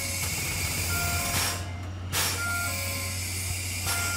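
C11 steam locomotive standing in steam while its turntable turns: a steady hiss over a low hum, with a louder rush of steam every second or two. Short beeping notes sound on and off over it.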